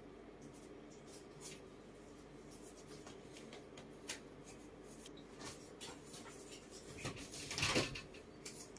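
Faint rustling and light scratching of cloth and bedding as pet monkeys fidget on a bed. There is a louder rustle about seven and a half seconds in, over a low steady hum.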